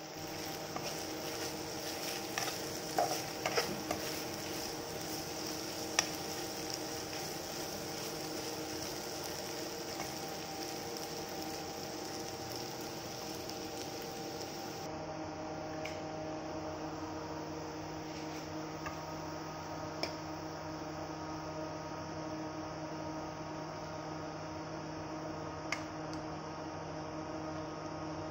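Steel spoon stirring a potato stir-fry in a nonstick frying pan, the food sizzling, with a few sharp clinks of the spoon against the pan over a steady hum.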